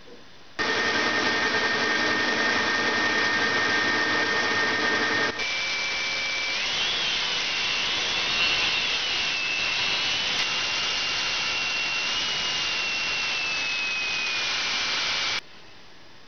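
Workshop power tools working metal, in two edited clips. First comes a steady machine noise with a constant whine for about five seconds. Then it cuts to a hissing cut with a whine that wavers up and down in pitch, which stops abruptly.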